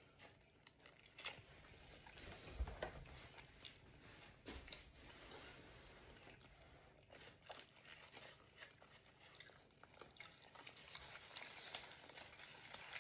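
A person quietly chewing and biting food, with faint crunches and small mouth clicks scattered throughout, and a low thump about two and a half seconds in.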